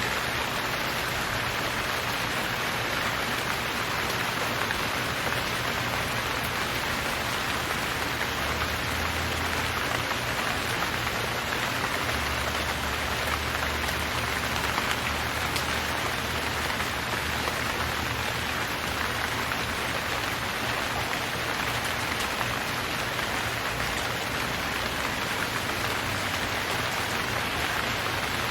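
Steady rain falling and pattering on surfaces, an even hiss with no change in strength.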